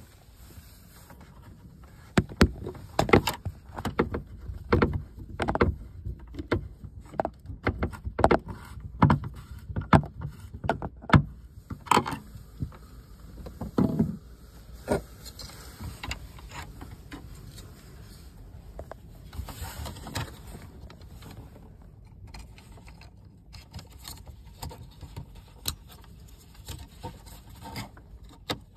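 Clicks and knocks of hard plastic car dashboard trim being handled by hand. They come thick and sharp through the first half, with a duller thud about halfway, then turn sparse and quieter.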